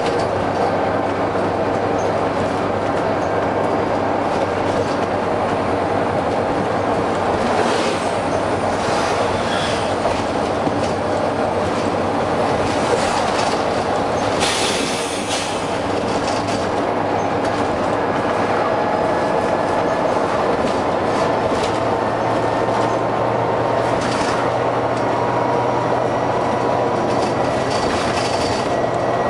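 Volvo B9TL double-decker bus's six-cylinder diesel engine running under way, heard from on board, with a rattly haze over the engine note. Short bursts of air hiss break in several times, the longest about halfway through.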